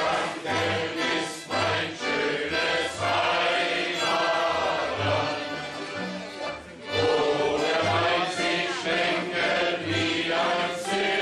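A crowd singing a tavern song together, with a band's low bass notes marking a steady beat.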